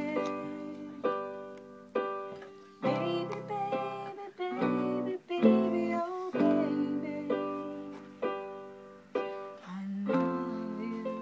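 Electronic keyboard playing slow chords and single notes, each struck and left to fade. The last chord, about ten seconds in, fades out.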